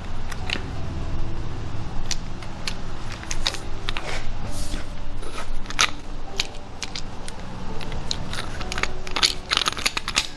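Irregular clicks, clinks and scrapes of a valve spring compressor tool being handled and set up on a big-block Chevy 454 cylinder head, metal knocking on metal.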